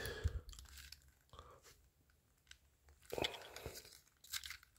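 Hard plastic parts of a Transformers Dead End toy car clicking and scraping as they are handled and pulled apart: a few faint clicks near the start, then a short cluster of scrapes and clicks about three seconds in.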